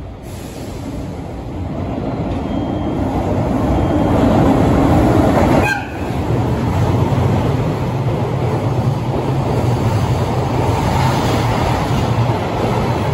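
A JR freight train passing through a station at speed: the electric locomotive's noise grows louder as it approaches, and after a brief dip as it goes by, the container wagons roll past with a steady low rumble and wheel noise on the rails.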